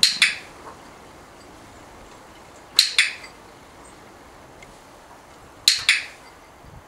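Dog-training clicker sounding three times, about three seconds apart, each a quick double click of press and release, marking the dog's chin resting on the dice.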